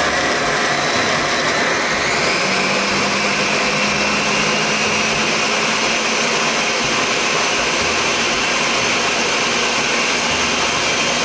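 Countertop blender running at full speed, pureeing cut tomatoes: a loud, steady motor whir with chopping noise, settling into a steadier hum about two seconds in as the chunks turn to a smooth puree.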